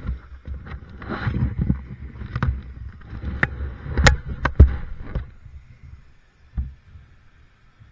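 A run of close knocks and bumps over a scraping rustle, busiest in the first five seconds, then thinning to a single knock and near quiet.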